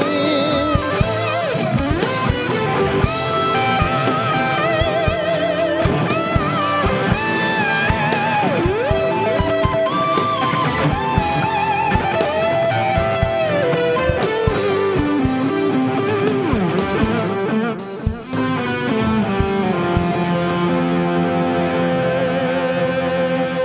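Instrumental break of a pop ballad with no vocals: an electric guitar plays a lead line with bends and vibrato over a steady drum beat. About eighteen seconds in the band briefly drops out, and then held chords ring on.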